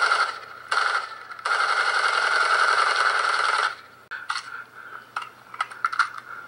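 Dry leaf litter crunching and rustling under a person crawling on their belly: long scraping stretches for the first few seconds, then sparser crackles and snaps.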